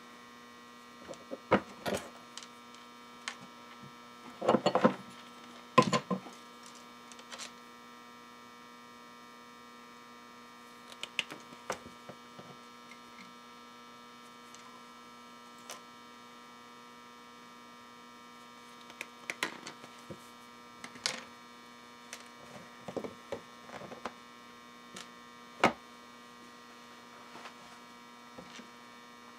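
Steady electrical hum from an off-grid power inverter, with scattered clicks and knocks of pliers, wire strippers and wire being handled on a workbench.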